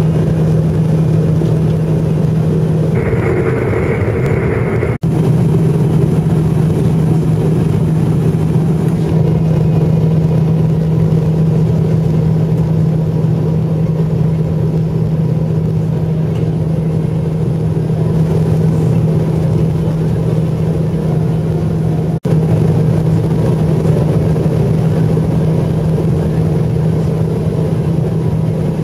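Jet airliner cabin noise beside the engine during the descent: a steady, loud rush of engine and airflow with a constant low hum. A brighter hiss joins for about two seconds a few seconds in, and the sound cuts out for an instant twice.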